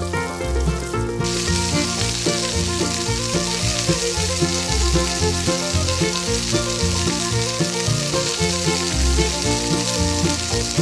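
Background music with changing bass notes. From about a second in, a steady hiss of a small metal spoon stirring and scraping chopped filling through paste in a miniature clay mortar runs beneath it.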